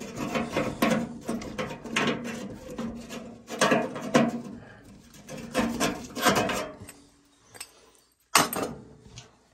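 Irregular clanks, knocks and scraping of sheet metal as the oil furnace's smoke pipe is worked loose, with a sharp clank near the end.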